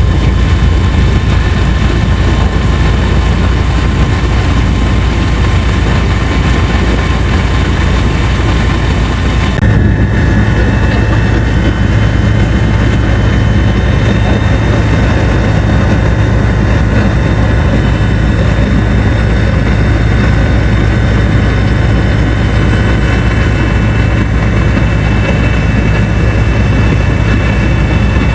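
Helicopter engine and rotor running steadily and loudly, with a low, even rumble and a steady whine. The sound changes abruptly about ten seconds in.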